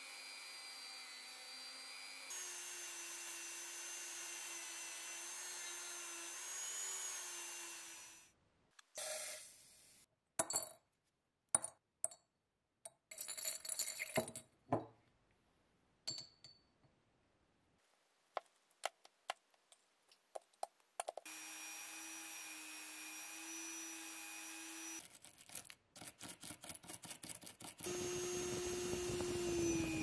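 Handheld rotary tool running with a steady whine as its felt polishing wheel buffs the metal lighter insert; it stops after about eight seconds and runs again for a few seconds later on. In between come scattered sharp clicks and clinks of small metal parts and glass, then a fast run of evenly spaced clicks. Near the end a louder motor starts up, and its pitch drops slightly.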